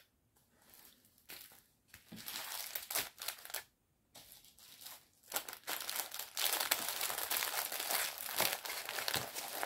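Plastic packaging crinkling and rustling as it is handled and folded, in short bursts at first, then almost without a break from about five seconds in.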